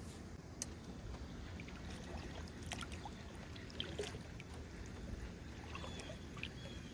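Sounds around a canoe on the water: a steady low rumble with a few light knocks and clicks scattered through it.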